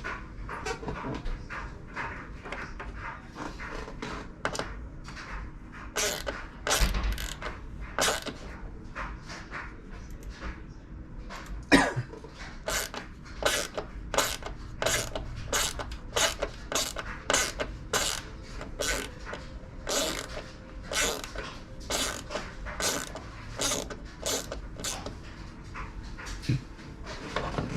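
A long series of sharp mechanical clicks and creaks, coming about two a second through much of the stretch, from a ratcheting tool or clamp being worked by hand while a pen blank is set up for drilling.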